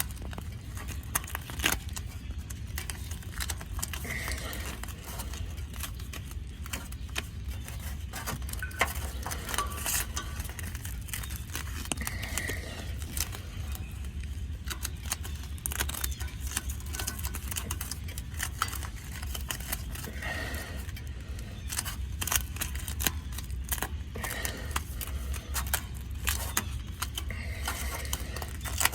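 Crinkling and clicking handling noises from Tiger Patch exhaust repair tape being wrapped around an exhaust pipe, with many short clicks throughout over a steady low rumble.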